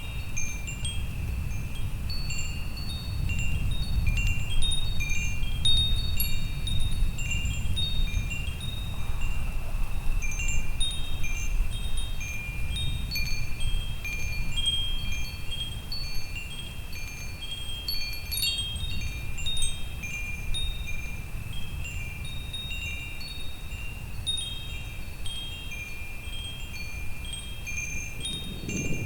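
Wind chimes ringing irregularly, several pitches overlapping, over a continuous low thunderstorm rumble that swells and fades.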